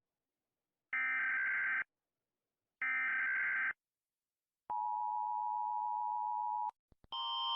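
Emergency Alert System header: two buzzing bursts of digital data tones, each just under a second, with a second's silence between them. Then the steady two-tone EAS attention signal sounds for about two seconds and cuts off. A couple of clicks follow, then a different, louder alert tone starts near the end.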